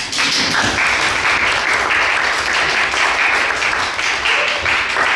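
Audience applauding: clapping that starts abruptly at full strength and holds steady.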